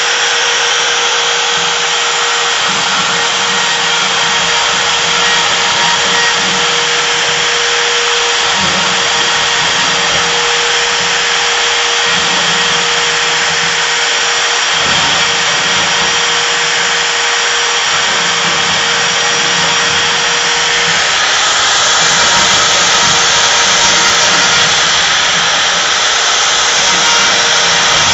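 CNC router running steadily as it cuts: a loud, even hiss with a steady whine. About three-quarters of the way through, the whine drops out and the cutting sound gets slightly louder.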